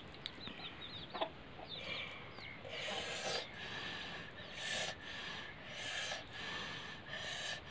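Chickens in the background, with high little peeps early on and clucking. Through the second half come four short breathy huffs, about a second and a half apart.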